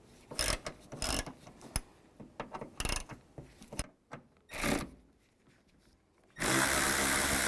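Ratchet with a T30 socket clicking in short bursts as it backs out the door latch screws, then a power tool whirring loudly and steadily for about two seconds near the end.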